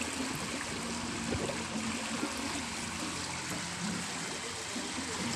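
Swimming-pool water splashing and sloshing steadily as a swimmer paddles through it close by.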